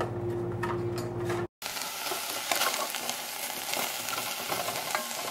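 A steady hum for about the first second and a half, then cuts off. After that, diced onion, celery, jalapeño and garlic sizzle in a stainless steel pot over medium heat while a spoon stirs them, with light scrapes and taps against the pot.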